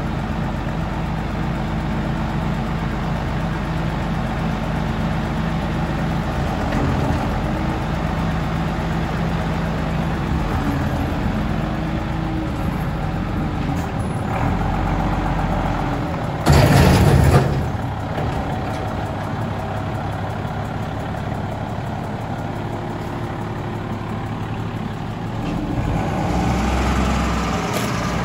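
Diesel engine of a 1986 Volvo front-loader garbage truck running steadily while it handles a steel commercial bin. A loud burst of noise lasting about a second comes about halfway through, and the engine note grows louder near the end.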